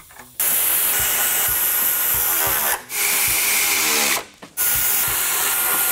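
Pneumatic air ratchet running fasteners into a bracket, with the hiss of its exhaust air. It runs in three bursts with short breaks between them, and the pitch shifts near the end of the first two bursts as each fastener runs down.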